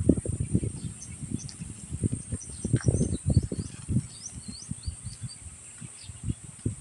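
Close-up mouth sounds of someone chewing fast food, an irregular run of soft wet chews. Faint bird chirps are heard about halfway through, over a steady high-pitched drone.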